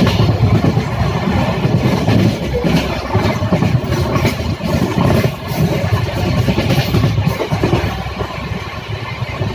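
Running noise of a moving train heard from inside the carriage at the window: a steady low rumble of wheels on the track with irregular clattering, easing off slightly near the end.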